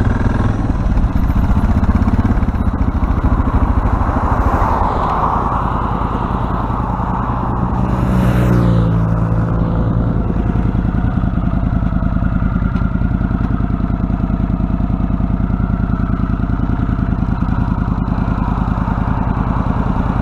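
Motorcycle engine idling steadily, with an even pulse. About eight seconds in, a vehicle passes on the road with a brief whoosh and a falling pitch.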